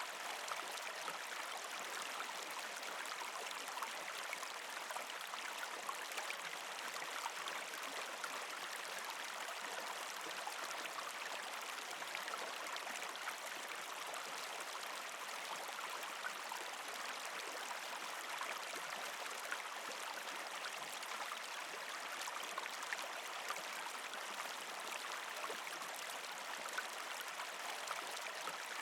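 Partially frozen creek flowing over rocks: a steady trickling, gurgling wash of water, dotted with many tiny splashes.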